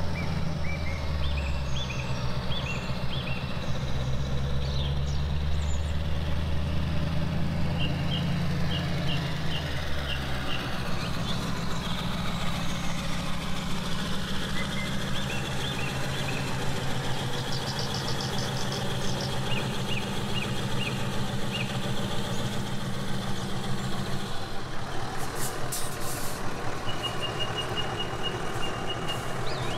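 Simulated diesel truck engine from an RC dump truck's sound module, running steadily as the truck drives, its note changing about ten seconds in and again later. Near the end a high, even beeping sounds as the truck backs up and raises its tipper.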